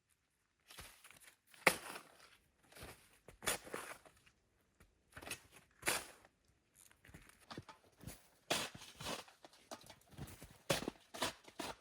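Footsteps crunching on the ground, uneven steps about one a second with brief pauses between.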